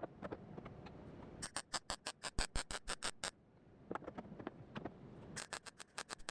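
Welder tack-welding sheet-metal quarter panel: two runs of quick, evenly spaced crackling zaps, about seven a second, the first starting about a second and a half in and the second near the end.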